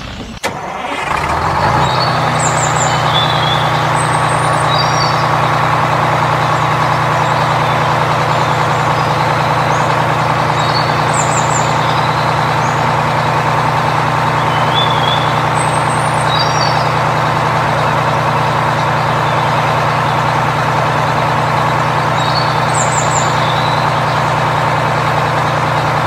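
A heavy vehicle engine runs steadily, starting about a second in: a low hum with a higher whine above it. Short high bird chirps come every few seconds over it.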